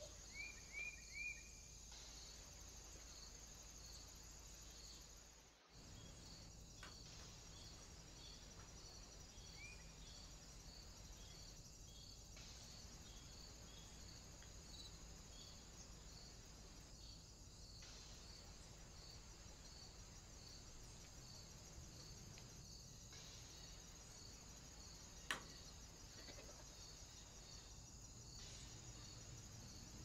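Faint, steady insect chirping, a high trill with regular pulses a little more than once a second. Three short rising chirps come about a second in, and a single sharp click comes near the end.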